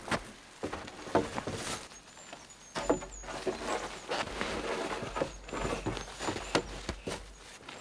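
Rustling of sack fabric and irregular knocks of wooden poles as a stretcher bed made of sacks threaded on two poles is handled and set onto a pole frame.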